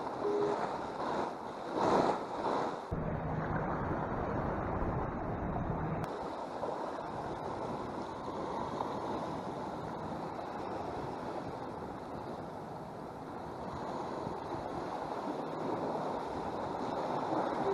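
Ocean surf washing against jetty rocks, with wind on the microphone; the wind gusts loudly in the first few seconds, then settles into a steady rush.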